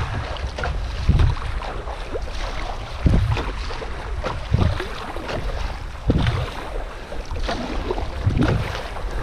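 Strong wind gusting across the microphone in low rumbling swells every second or two, over the steady crackle of choppy water lapping around a canoe.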